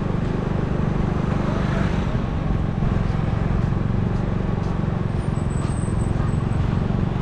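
Motor scooter's small engine running steadily while riding at low speed, an even low hum.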